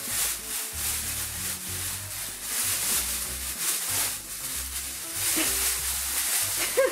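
Thin plastic bag rustling and crinkling in repeated bursts as cat toys are stuffed into it and the bag is handled, over background music.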